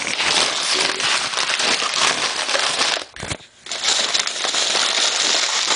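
Plastic bags and packaging crinkling and crackling as they are handled, with a brief pause a little after three seconds in.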